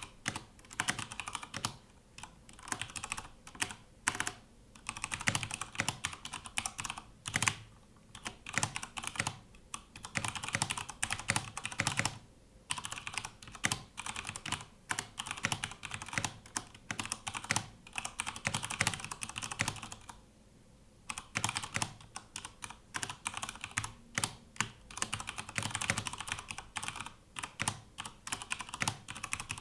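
Cooler Master MK750 mechanical keyboard being typed on quickly and continuously, a fast run of key clicks with two short pauses, one near the middle and one about two-thirds of the way through.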